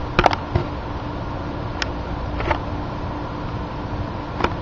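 Handling noise from a phone pressed against skin and a trampoline mat: a few short clicks and knocks, the loudest cluster just after the start and single ones about two, two and a half and four and a half seconds in, over a steady low hum.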